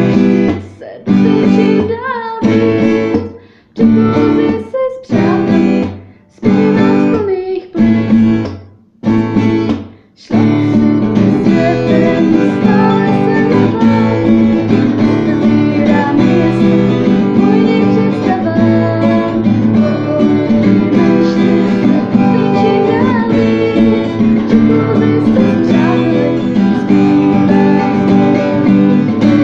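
Acoustic guitar: for the first ten seconds, single chords are struck about once a second, each cut short by a brief gap; then steady continuous strumming.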